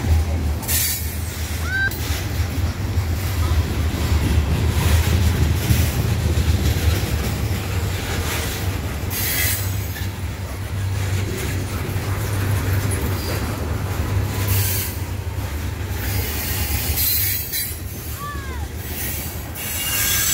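CSX coal train's hopper cars rolling past at close range: a steady low rumble of wheels on rail, broken every few seconds by short high screeches and hisses from the wheels.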